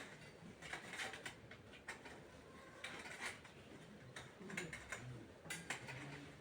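Faint, irregular light clicks and rattles of curtain hooks being handled and fitted while curtains are hung.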